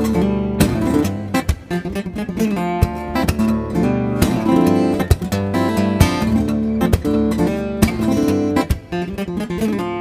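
Background music: solo acoustic guitar, plucked and strummed, with sharp percussive hits throughout.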